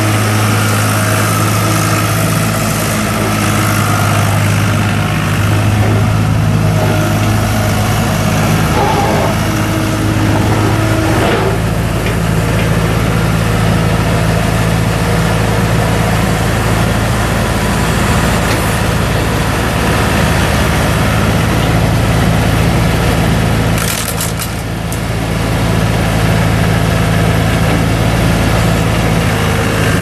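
John Deere 240 skid steer's 2.9 L three-cylinder diesel engine running steadily with a deep hum while the machine drives, turns and works its loader arms. Its note shifts about eleven seconds in, and there is a brief clatter about three-quarters of the way through.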